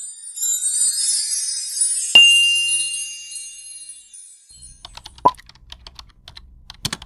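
Subscribe-button animation sound effects: a high glittery shimmer of chimes with a bright ding about two seconds in that rings on, then a run of quick clicks like typing or mouse clicks from about four and a half seconds on.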